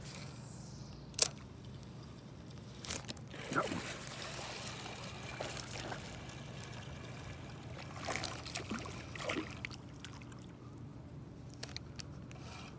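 Water splashing and trickling beside a canoe in irregular small bursts, with a single sharp knock about a second in.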